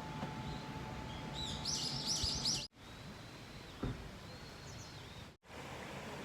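A bird calling in a quick run of about five repeated curved notes, with fainter single calls after, over a steady outdoor hiss. The sound drops out abruptly twice at edits, and a short low thump comes near the middle.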